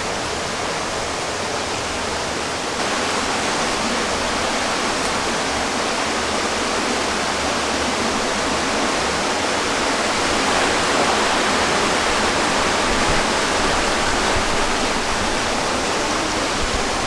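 Steady rushing noise of running water, a little louder from about three seconds in.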